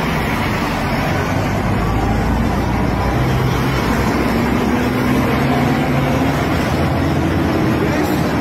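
Steady road traffic noise with a truck's engine running.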